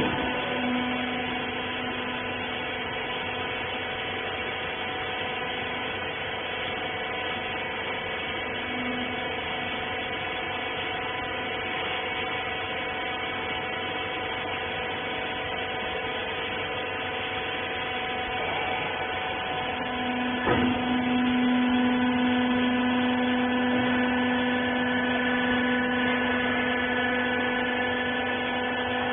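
Hydraulic press baler's pump motor running with a steady hum of several tones. About 20 seconds in there is a click, and the lowest tone swells and the sound gets a little louder, as the hydraulics come under load.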